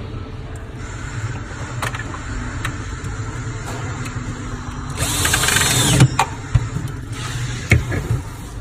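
A power drill or driver runs in one burst of about a second, over a low hum, with scattered clicks and knocks of parts being handled.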